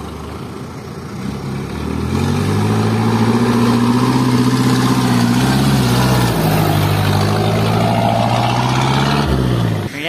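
A small tanker truck's engine running as it climbs past close by, growing louder as it approaches. The engine note dips briefly about six seconds in, then falls and cuts off at the end.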